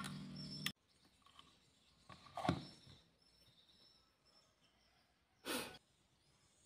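Faint handling sounds of an 18650 lithium cell being pressed into a plastic battery charger, cut off sharply under a second in, then quiet with two short soft rustles, about two and a half and five and a half seconds in.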